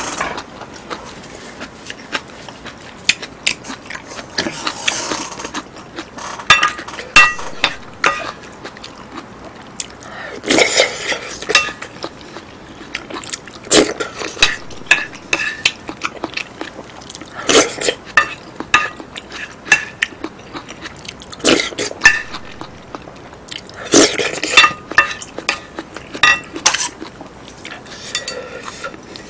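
Close-miked eating: mouthfuls of curry, rice and noodles chewed and slurped, with a spoon and chopsticks scraping and clinking on ceramic plates. Many small clicks, with a louder spell of eating noise every three to four seconds.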